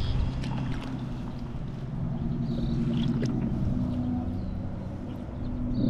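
A steady low motor hum, with a few brief high chirps over it.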